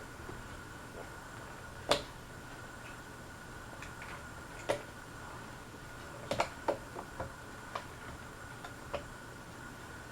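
Harbor Breeze Armory ceiling fan running on medium with a faint steady hum. About a dozen sharp clicks and ticks come at irregular intervals, the loudest about two seconds in and a cluster a little past six seconds.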